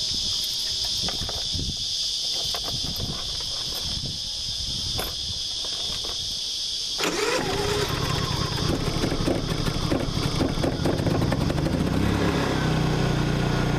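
Crickets chirping steadily, with a few clicks of handling at the generator's controls. About seven seconds in, a Honda EU30is 3 kW inverter generator starts and keeps running inside a compartment lined with sound-absorbing material, its engine note shifting once near the end.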